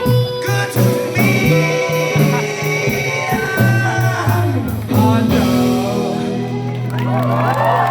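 Live rockabilly band, with electric guitar, bass and drums, playing the closing bars of a song. The drums strike on the beat, then the band holds a long final chord from about five seconds in. Near the end the crowd starts cheering and whooping.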